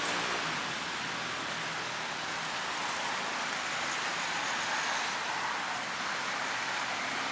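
Steady hiss of road traffic, with a faint engine hum coming in near the end.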